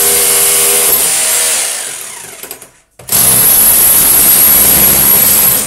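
Handheld electric power tool running at full speed with a high whine, then released and spinning down about two seconds in. It is triggered again about three seconds in and runs steadily until it cuts off near the end.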